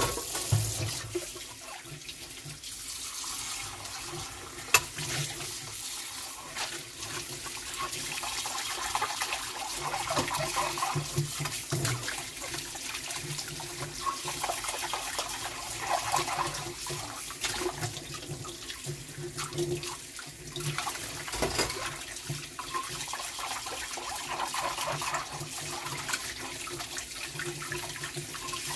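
Kitchen faucet running into a stainless steel sink as ceramic bowls are rinsed under the stream, the water splashing off the dishes. A couple of sharp clinks sound as the dishes are handled, one about five seconds in and one past the twenty-second mark.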